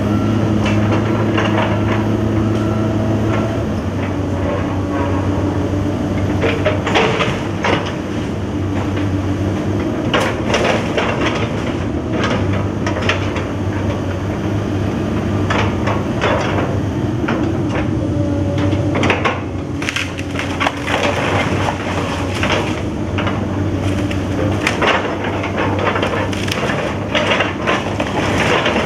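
Excavator demolishing a fire-gutted timber-framed house: its diesel engine runs steadily while charred wood cracks and splinters under the bucket, with sharp snaps and crashes coming in clusters throughout.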